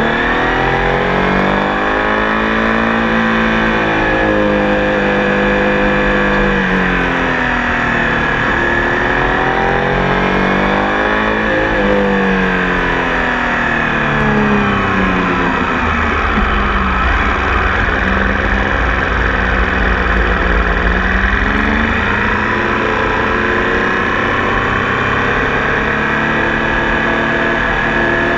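Tiger Sport 800 motorcycle engine running under changing throttle, its pitch climbing and falling again several times in long sweeps, with a steady rush of wind or road noise underneath. About halfway through, the engine sits at a low, deep pitch for several seconds before rising again.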